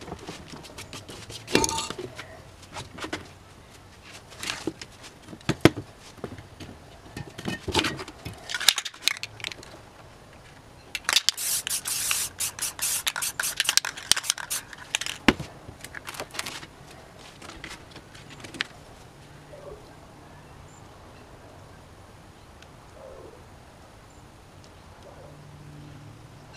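Aerosol spray paint can spraying in one hissing burst of about three seconds, followed by a few shorter bursts. Before it come scattered clicks and rustles of paper and cans being handled.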